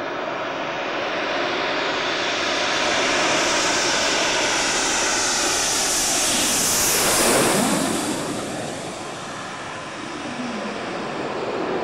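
A pair of Panavia Tornado jets, twin RB199 turbofans each, approaching and passing close by. The jet noise builds steadily to a peak about seven seconds in, then drops in pitch and fades as they go past, before beginning to swell again near the end.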